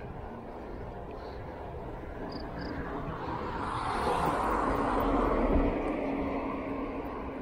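A car overtaking from behind: its tyre and engine noise swells over a few seconds, is loudest about three-quarters of the way in, then fades as it pulls ahead. A steady low rumble lies underneath.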